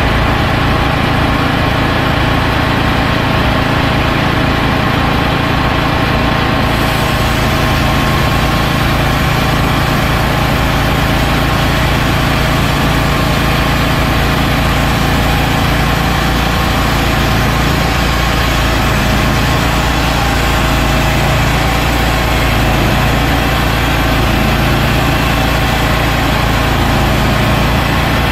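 A portable bandsaw sawmill running steadily while the band blade saws along a white oak log. A few seconds in, a higher hiss joins the steady engine sound and holds.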